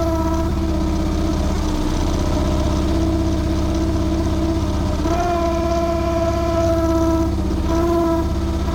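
Chinese mini excavator's engine running steadily just after starting, with a steady whining tone over it that steps up slightly in pitch about five seconds in and breaks off briefly twice near the end.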